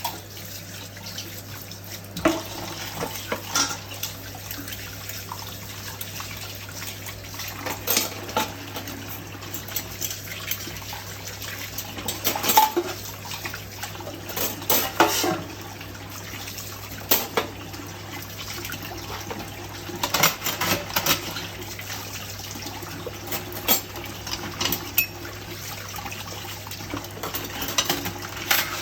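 Dishes being washed by hand in a kitchen sink: steady running tap water, with scattered clinks and knocks of plates and cutlery, some in quick clusters.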